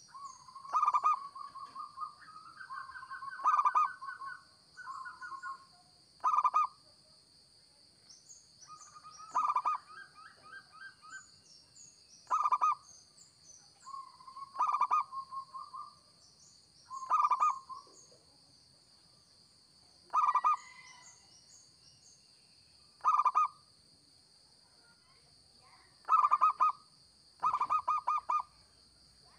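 Zebra dove (perkutut) cooing: repeated phrases of quick, rolling, stuttered notes, one every two to three seconds, with faint high chirps of small birds behind.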